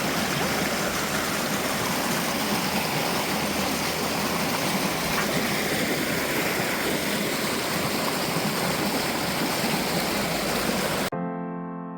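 Rushing water of a stream or small waterfall, a steady even rush that cuts off abruptly about eleven seconds in, replaced by soft piano-like music.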